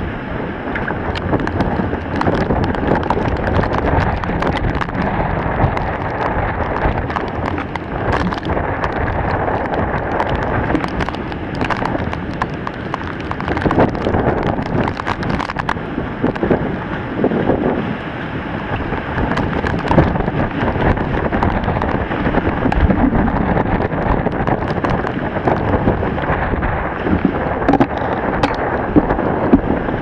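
Typhoon wind buffeting the microphone in a steady, loud rush, with heavy rain and scattered sharp taps of raindrops striking the camera.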